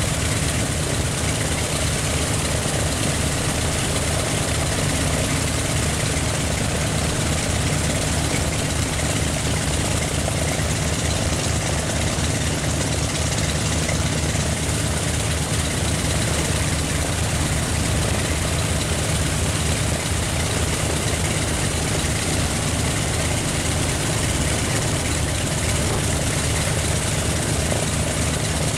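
The twin Wright R-1820 Cyclone nine-cylinder radial engines of a Grumman S-2 Tracker running steadily on the ground, propellers turning, with no change in engine speed.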